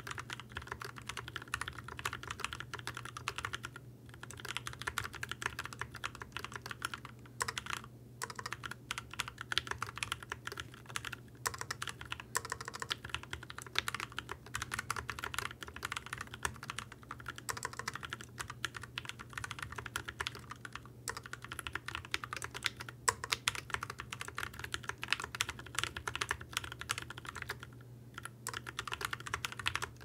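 Fast touch-typing on a Keychron Q11 split mechanical keyboard with factory-lubed Gateron Brown switches: a dense, even stream of muted taps that breaks briefly a few times.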